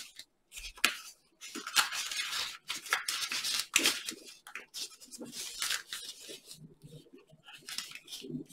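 A sheet of origami paper rustling and crinkling as fingers fold and press creases into a large, many-layered model. The sound comes in quick, irregular bursts with short pauses.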